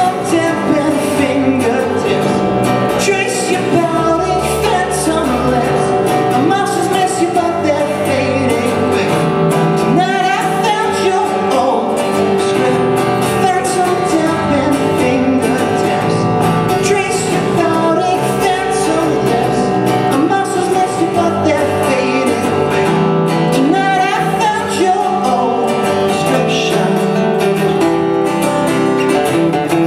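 Live folk-rock band playing a song: a man singing over strummed acoustic guitar and an acoustic bass guitar, at a steady loud level throughout.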